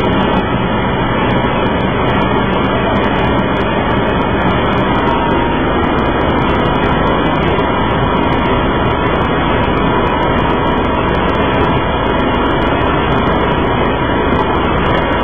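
A city bus idling at a layover, its engine a steady, unbroken drone heard from inside the cabin.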